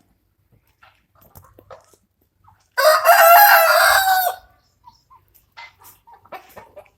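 A country-chicken rooster crowing once, one loud call about a second and a half long, with faint clucking around it.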